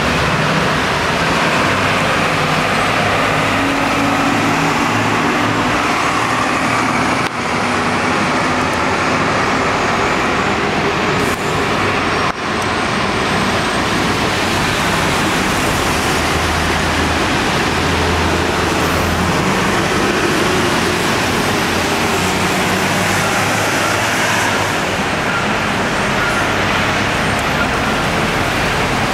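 Steady city street traffic noise: the continuous hum and hiss of cars and buses passing on wet, snowy roads below.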